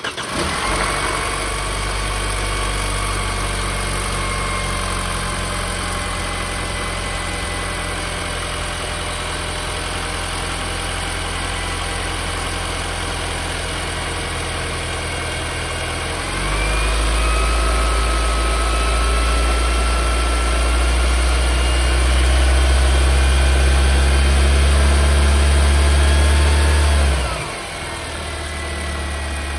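Mercedes-Benz W204 C-Class engine running at idle; about 16 seconds in it steps up to a faster, louder run for some eleven seconds, then drops back to idle.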